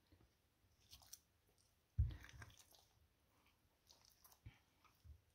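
Hands rubbing dry spice powder into raw chicken fillets in a glass baking dish: faint wet handling and crackly rubbing sounds, with a soft thump about two seconds in.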